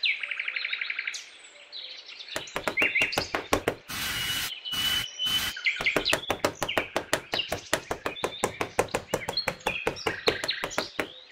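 A small metal hand trowel scraping and tapping over a bed of fine sand in quick, irregular strokes, with birds chirping behind it. A quick chirping trill comes first, before the trowel starts about two seconds in.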